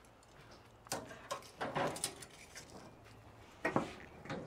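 Light metal clinks and scrapes on the smoker's wire cooking grate as a rack of baby back ribs is lifted off: a few scattered short clicks and knocks.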